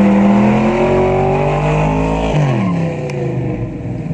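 Chevrolet Nova's engine held at high revs through a burnout, its pitch rising a little and then dropping sharply about two and a half seconds in as the revs come off.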